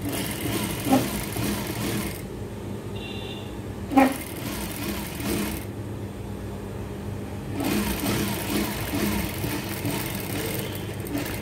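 Electric sewing machine stitching cloth in three short runs with pauses between them, over a steady low motor hum. A sharp knock comes about four seconds in.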